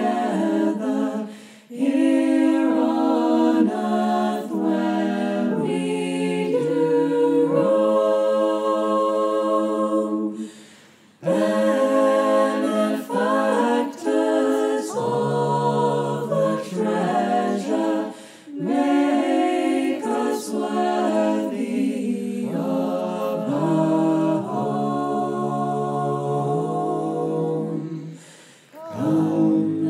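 Mixed-voice choir singing a cappella in harmony, in long held phrases with brief breath pauses between them, the longest about ten seconds in.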